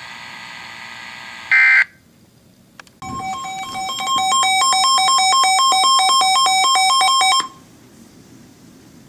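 Electronic alert tones between two emergency alert broadcasts. A short electronic burst comes about a second and a half in. After a pause, two tones alternate rapidly in a warbling, phone-like ring for about four and a half seconds, then cut off sharply.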